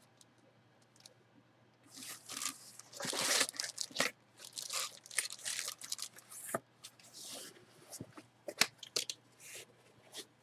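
Plastic garment bag crinkling and rustling in irregular bursts as a jersey is handled, with a few sharp clicks, starting about two seconds in.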